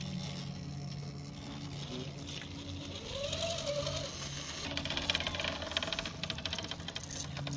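Electric motors and geartrains of RC rock crawlers whining as they climb granite. About three seconds in, a motor revs up in a rising whine. From about five seconds, a fast rattling clicking comes in.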